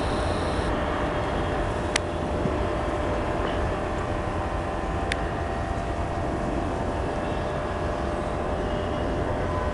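Steady rumble of a long passenger express train's coaches rolling away on the track, with two sharp clicks, about two and five seconds in.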